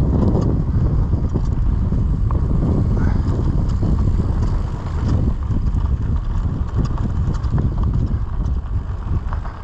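Wind buffeting the camera microphone while riding a mountain bike downhill over a grassy dirt trail, a steady low rumble mixed with tyre noise, with scattered light clicks and rattles from the bike.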